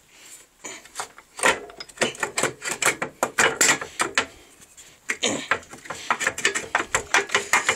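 Ratchet wrench clicking in quick runs of short strokes as a bolt on the motorcycle's rear shock mounting is worked loose, with a brief pause about four and a half seconds in and a dense run of clicks after it.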